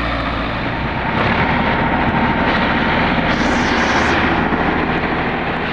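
Sonalika tractor's diesel engine working hard under load, hauling a trolley through soft, rutted dirt: a loud, dense rumble, with a brief rush of higher noise a little past the middle.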